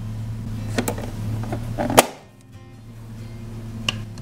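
Pink Barbie electronic toy oven's baking sound running with a steady hum, then cutting off abruptly with a sharp click about two seconds in. A sharp plastic click near the end as the oven door is opened.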